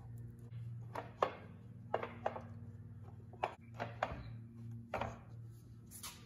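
Wooden knocks and clacks, about nine at uneven intervals, as glued ambrosia maple end-grain strips are handled and set down onto steel pipe clamps. A steady low hum runs underneath.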